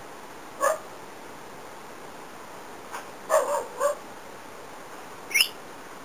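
A few short, high-pitched animal calls: one about a second in, three in quick succession in the middle, and a last one rising in pitch near the end.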